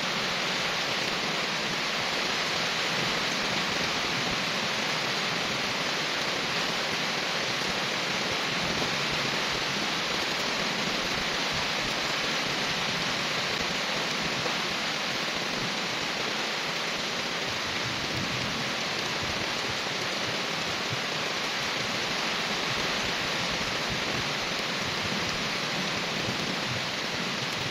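Steady rain falling on trees and wet pavement: an even, unbroken hiss.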